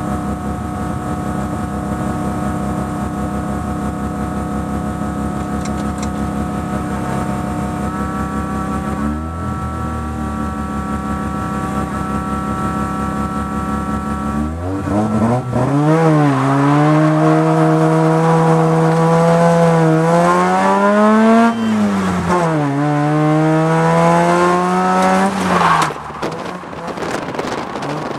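Mazda RX-7 FC's 13B rotary engine heard from inside the cabin, holding a steady pitch for about the first half with a small dip about nine seconds in. From about halfway it revs up and down again and again, the pitch climbing and falling with throttle and gear changes, before dropping back near the end.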